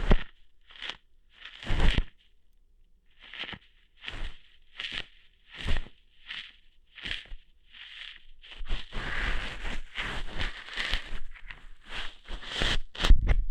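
Ear-hair plucking ASMR sounds close to the microphone: a string of short crackling pulls about once a second, some with a low thump. A denser run of scratchy rustling follows from about nine to eleven seconds in, and a few louder pulls come near the end.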